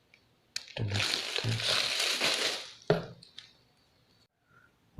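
Packaging being handled and crinkling for about two seconds, with a few sharp clicks at its start and end.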